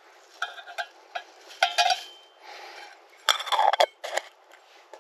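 Irregular clusters of sharp metallic clinks and knocks, a few of them ringing briefly, in three groups.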